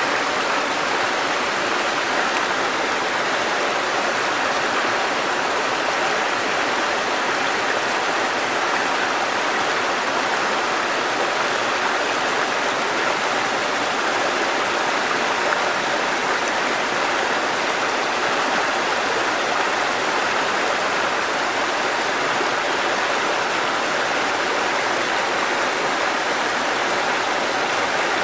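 Waterfall: water falling and rushing in a steady, unbroken hiss.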